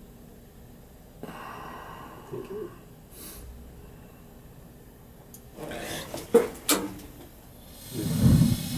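Gas boiler's main burner lighting off about eight seconds in, a sudden rush of flame that settles into a steady burn, with the gas pressure at the new Honeywell valve still set above the 3.5 target. Before it there are only faint clicks and handling noises.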